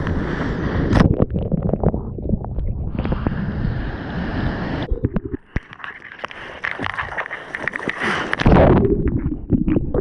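Ocean water rushing and splashing right at the microphone while riding and paddling in breaking surf, with wind buffeting the mic. It eases off around the middle into scattered splashes, then a loud, heavy churning rush sets in about eight and a half seconds in as whitewater washes over.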